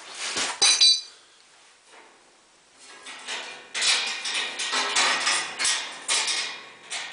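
Steel wire cage trap being reset: sharp metal clanks and a brief ringing clink in the first second, then a pause, then a few seconds of dense rattling and clattering of the cage's wire and spring-loaded doors.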